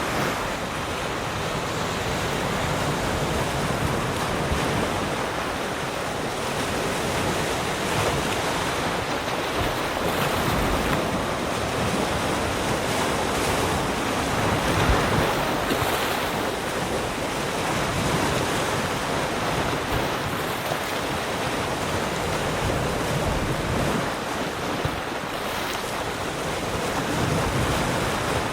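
Ocean waves washing onto a shore: a continuous rushing noise that swells and eases gently.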